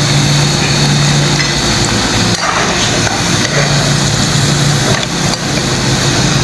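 Moong dal pakoras deep-frying in hot oil in a kadai, a steady sizzle, with a low hum that fades in and out underneath.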